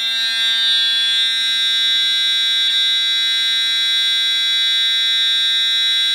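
Fire alarm horn sounding one steady, unbroken tone: the system in alarm from a pulled pull station, with the panel set to its California code, which here sounds continuously.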